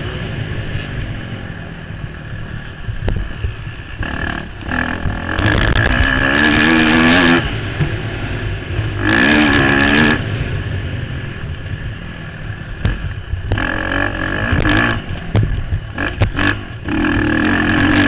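Motocross bike engine ridden hard around the track, the throttle opened four times in loud bursts that climb in pitch, falling back to a lower note between them.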